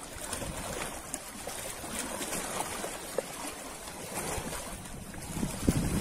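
Ocean waves washing on the shore: a steady hiss of surf. Low rumbles of wind buffeting the microphone come in near the end.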